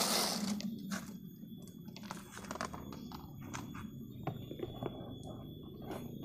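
Foam AC-cleaner crackling and popping as it breaks down inside the evaporator housing: irregular fine crackles and small clicks over a low hum, with a brief hiss at the start.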